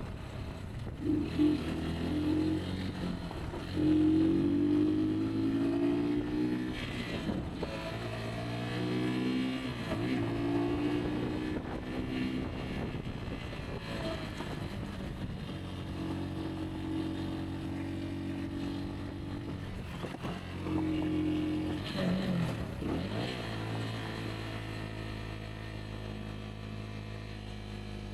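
Rieju Aventura 125 trail motorcycle's single-cylinder four-stroke engine running under way, its revs rising and falling again and again with the throttle and several brief dips, with a few louder surges in the first few seconds.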